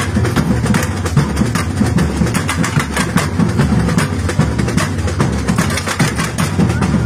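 Samba school percussion ensemble (bateria) playing a dense, continuous drum rhythm, with the bass drums strongest.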